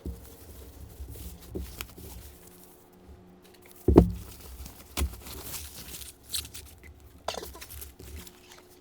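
Unboxing handling noises: packaging rustling and crinkling, with a few sharp knocks as things are moved and set down, the loudest about four seconds in.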